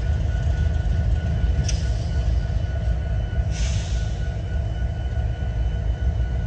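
Freight train in a rail yard: a steady low rumble with a thin, steady high whine over it, and two short hisses, the first about a second and a half in and the second, longer one about three and a half seconds in.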